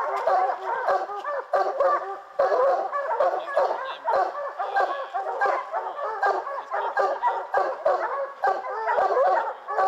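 A pack of bear hounds baying and barking together, many voices overlapping without a break: hounds bayed up at a treed bear.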